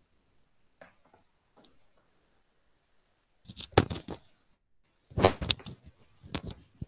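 Three clusters of short knocks and clatters, about three and a half, five and six and a half seconds in.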